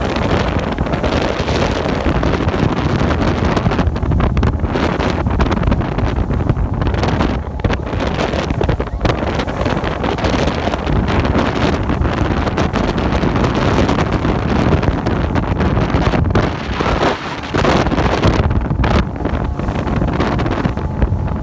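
Loud wind buffeting the microphone aboard a Bayliner Capri runabout underway at speed, over the rush of water and the drone of its 3.0 MerCruiser 135 hp engine.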